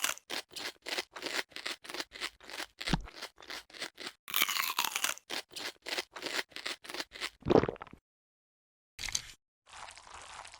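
Crunchy eating sounds, mouth-close chewing ASMR style: a quick run of crunches, about three to four a second, that stops about eight seconds in. A brief burst and a soft hiss follow near the end.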